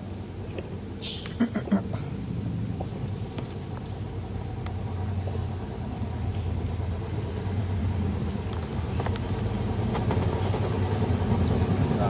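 A steady high insect drone over a low engine rumble that grows louder toward the end, with a short crackle about a second in.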